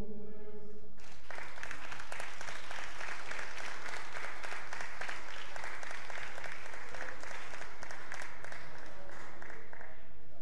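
Audience applauding, starting about a second in and stopping shortly before the end.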